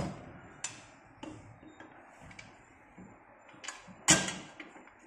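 Metal connecting rod and frame bracket of a home fitness machine clicking and knocking against each other as the rod is fitted onto the frame head, a few scattered knocks with the loudest about four seconds in.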